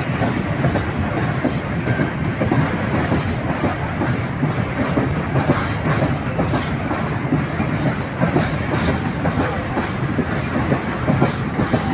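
Rake of open coal wagons rolling during shunting: a steady rail rumble with many short clanks and clicks from wheels and couplings running over the track.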